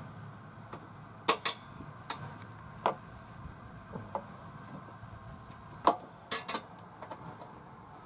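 Scattered sharp metallic clicks and clinks, a pair a little over a second in and a quick cluster of three near six seconds: M8 bolts, washers and locking nuts being handled and fitted through the mulch control plate into the mower deck.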